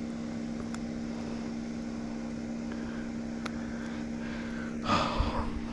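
A steady low motor hum, even in pitch throughout, with a brief rush of noise about five seconds in.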